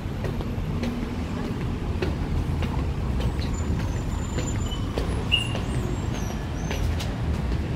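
Steady low rumble of street traffic, with faint ticks of footsteps on pavement.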